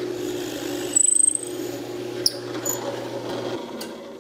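Drill press running with a 5/16-inch twist bit, boring the cross-pin hole through a hardwood plane body. There is a brief high squeal, rising slightly, about a second in. The motor hum stops near the end.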